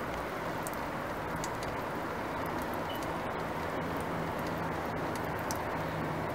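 Engine coolant trickling from an opened radiator drain valve in a thin stream onto the ground, a steady faint splatter with scattered light ticks.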